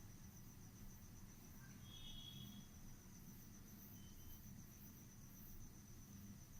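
Near silence: room tone with a faint, steady, high-pitched pulsing tone throughout and a brief faint higher tone about two seconds in.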